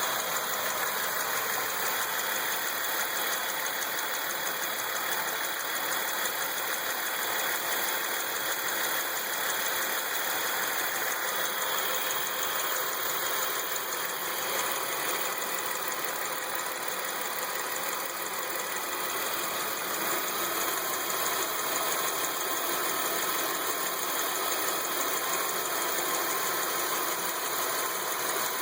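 Ecotec 3.8-litre V6 engine running steadily with a ticking noise. The owner suspects a lifter, and a further noise that the owner believes comes from the alternator.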